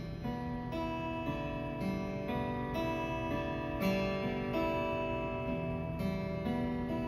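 A plucked string instrument playing a melody. A new note starts about every half second and each one rings on.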